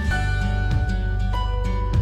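Soft background music with held notes over a steady low bass, with plucked guitar.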